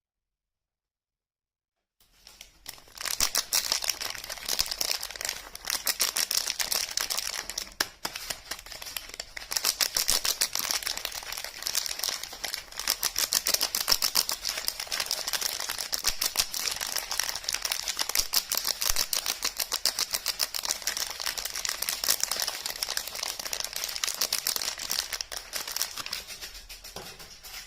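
Close-miked crinkling and rapid clicking from soap and its packaging being handled and unwrapped, starting suddenly about two seconds in after silence and continuing densely.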